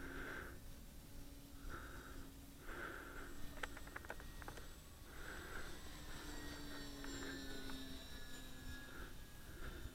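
Faint, steady hum of a model airplane's motor in flight, with irregular soft puffs of noise close to the microphone.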